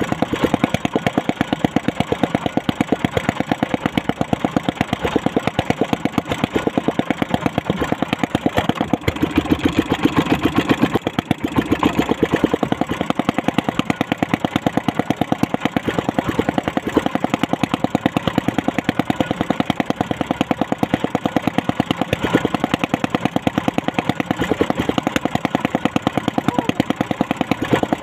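Small boat engine running steadily at low speed, with a rapid, even putter.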